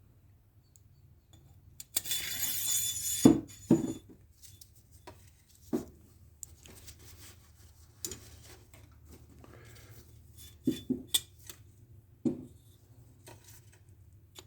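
Small machined steel parts of a lathe thread dial clinking and knocking against each other and the bench as they are handled and fitted, after a short hiss about two seconds in.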